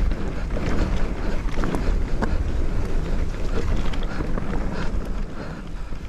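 Wind buffeting the microphone as an e-mountain bike rolls downhill over a rocky dirt track, with the tyres crunching and the bike rattling over stones in scattered clicks.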